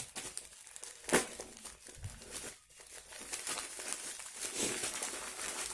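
Plastic courier packet being opened by hand: a sharp crackle about a second in, then continuous crinkling and tearing of the plastic from about three seconds on.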